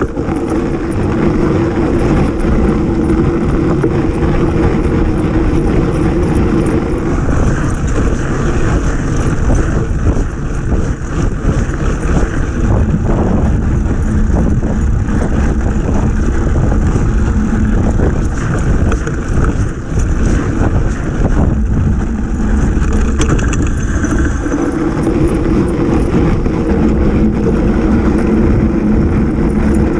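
Vehicle engine running steadily under a heavy low rumble on the moving camera's microphone. The engine hum thins out in the middle and grows stronger again near the end.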